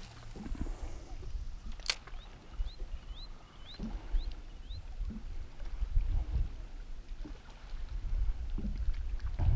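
Irregular low rumble of wind on the microphone and water lapping against a small fishing boat. A sharp click comes about two seconds in, followed by a bird calling a run of about six short rising notes.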